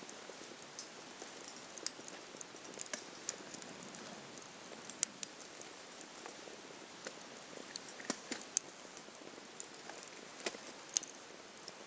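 Small wood fire crackling: irregular sharp pops and snaps over a faint steady hiss, a few louder snaps scattered through.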